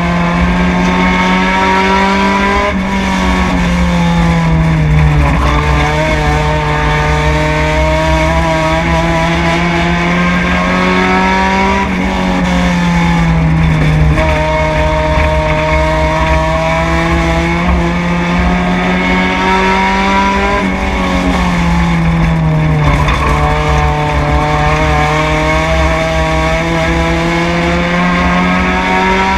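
Four-cylinder race car engine heard from inside the cockpit at racing speed, its pitch climbing steadily down each straight and dropping sharply as the driver lifts for each turn, about seven times over successive laps.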